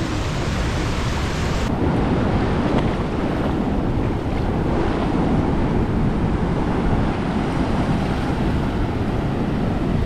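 Strong ocean surf: large waves breaking and rushing over the rocky shore at low tide, with wind buffeting the microphone.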